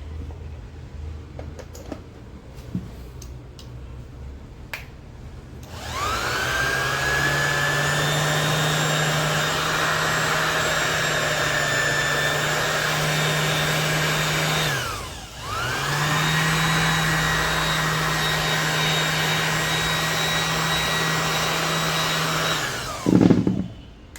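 Electric finishing sander switched on a few seconds in, its motor spinning up to a steady whine. About halfway through it is switched off, winds down briefly and is started again, then runs steadily until it stops near the end with a short louder burst. A few light clicks of handling come before it starts.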